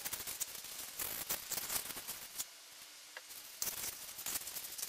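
Gloved hands wiping and handling a greasy steel vise jaw carrier with a shop rag: irregular bursts of scratchy rubbing with light clicks, broken by a pause of about a second in the middle.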